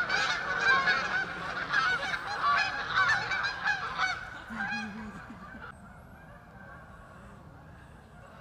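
A flock of Canada geese honking, many calls overlapping, as the flock takes off and flies away. The honking thins out and fades away a little past halfway.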